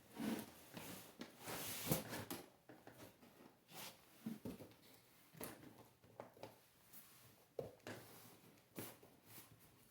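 A rubber bicycle tire being worked onto a wheel rim by hand: irregular scuffing and rubbing with small knocks, with a louder knock about two seconds in.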